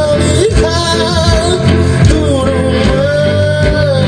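Live band music: a singer's voice over guitar and bass, holding one long note through the second half.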